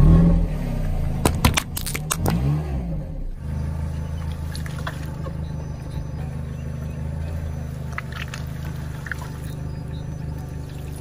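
A car tyre rolls over small rubber squeeze toys: a few sharp cracks and short squeaky whistling glides as they are flattened. Then the Peugeot's engine idles steadily with a low hum while the tyre squashes a block of green jelly, with a few faint clicks.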